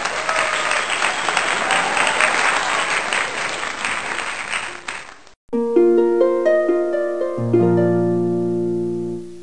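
Crowd applause and cheering for about five seconds, cut off abruptly. After a brief gap, music starts: a short run of plucked string notes that ends on a held chord with deep bass notes about two seconds later, slowly fading.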